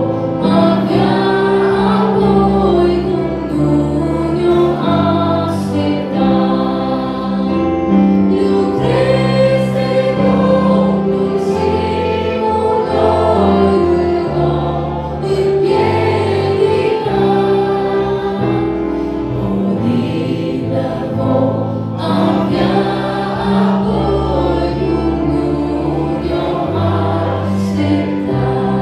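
A young woman singing an old Romanian hymn solo into a microphone, amplified through the church PA, over an instrumental accompaniment of long held chords and bass notes.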